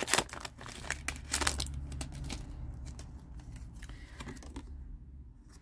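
Foil Pokémon booster pack crinkling and being torn open by hand, a dense run of crackles that thins out after about two and a half seconds.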